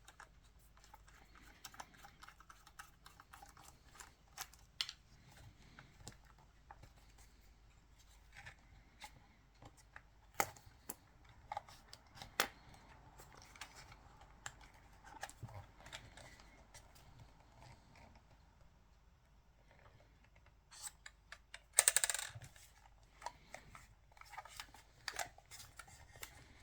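Scattered small clicks and taps of a precision screwdriver and small screws and parts of a Canon EOS 5D camera body being handled during disassembly, with a louder brief rattling scrape near the end.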